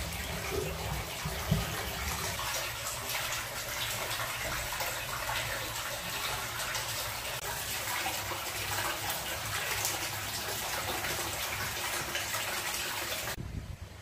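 Hot spring water pouring steadily from a spout into a stone bathtub, a continuous splashing that cuts off abruptly near the end.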